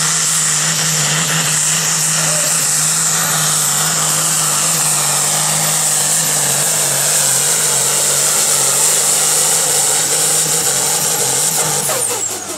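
Super farm class pulling tractor's diesel engine running flat out as it drags a weight-transfer sled, a loud steady note with a high whine above it. About twelve seconds in, the engine note falls and the sound drops away as the pull comes to an end.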